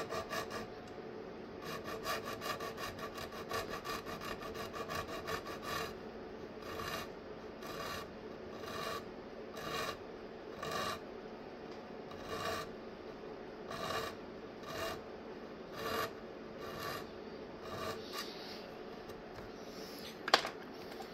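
Small hand file rasping back and forth on the metal edge of a power supply's front-panel switch cutout, enlarging it to take a circuit breaker. Quick, rapid strokes for about six seconds, then slower strokes a little over one a second. A single sharp click near the end.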